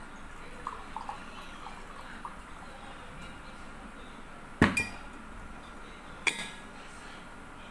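Kitchenware clinking and knocking: a few light clinks, then two sharp knocks, the first followed at once by a smaller one, as items are set down.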